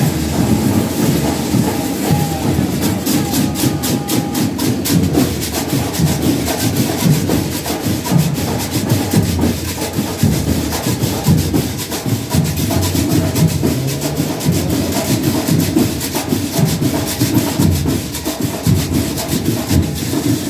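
Marching band percussion playing a fast, steady beat, loud and dense with many closely spaced drum hits.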